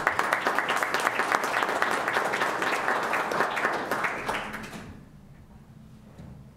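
Small audience applauding. It starts suddenly, as a dense patter of many hands, and dies away about five seconds in.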